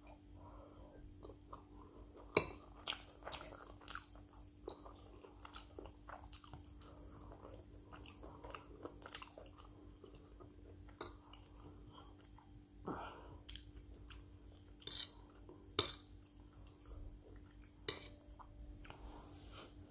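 Close-up chewing and mouth sounds of a person eating rice and stew, with a few sharp clicks of a metal spoon against the plate. A faint steady hum underneath.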